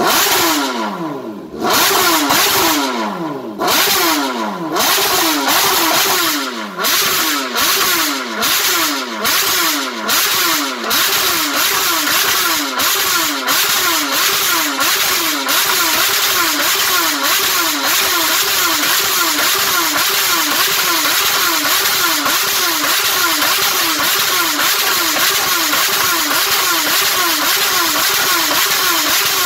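Motorcycle engine revved in repeated throttle blips, each rev falling away before the next. The blips start about a second and a half apart, then quicken to a steady two or so a second.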